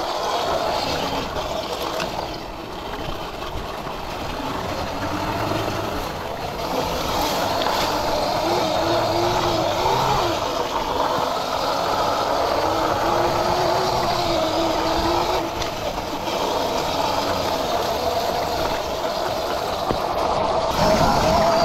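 Sur-Ron electric dirt bike being ridden: a steady rushing noise from the ride, with a whine that wavers up and down in pitch.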